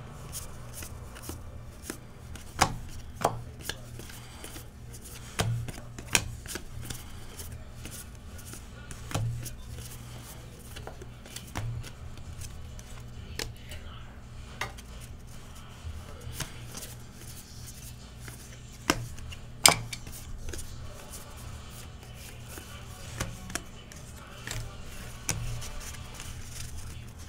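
Trading cards being handled and laid down on a table: irregular sharp taps and clicks, a few much louder than the rest, over a steady low hum.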